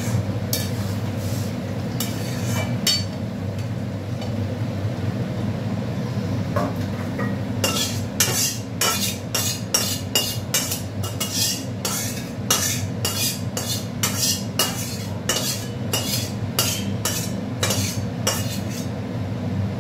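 Metal spoon stirring and scraping in a cooking pot, with a few clinks at first and then a steady run of sharp knocks against the pot about twice a second through the second half, over a steady low hum.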